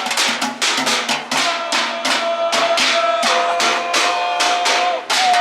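Street percussion troupe drumming fast, tight rhythms on plastic trash cans, buckets and janitorial gear. Midway a held pitched note joins the drumming and slides down near the end.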